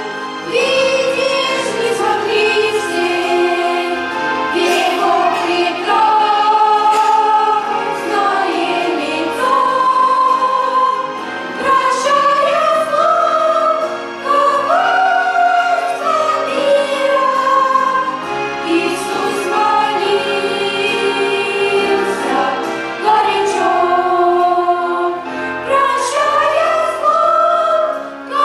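A choir singing a hymn in held notes that move from one pitch to the next.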